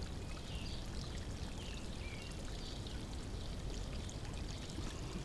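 Steady running water pouring into a backyard pond, with short faint chirps from small birds.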